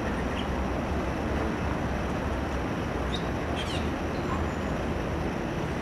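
Steady outdoor background rumble and hiss with no clear event, with a few faint high chirps, like a small bird, about three to four seconds in.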